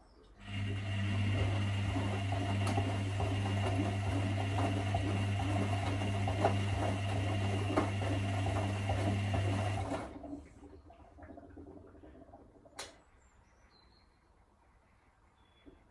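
Electra Electronic 1100 front-loading washing machine in the wash phase of a 60° cotton cycle. The drum motor runs with a steady hum while the drum tumbles a wet load of towels, sloshing and thudding, then cuts off abruptly about ten seconds in for a pause in the wash rhythm. A single sharp click comes a few seconds later.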